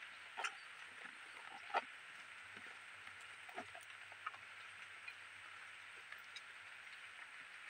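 Quiet mouth sounds of hand-eating rice and fish curry: a few short wet chewing smacks and clicks, the loudest about two seconds in. A steady high hiss sits under them.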